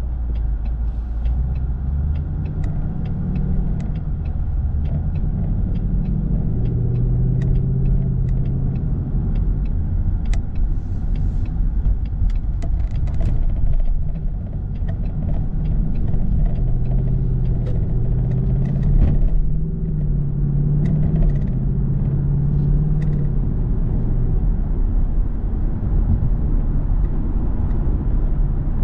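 A car's engine and road noise heard from inside the cabin as it speeds up from slow traffic onto a freeway. The engine note rises and drops a few times over a steady low rumble, with scattered light clicks.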